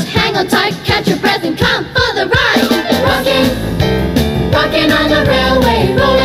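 Background music: a melodic passage with a regular beat that gives way, about three seconds in, to full held chords leading into the next song.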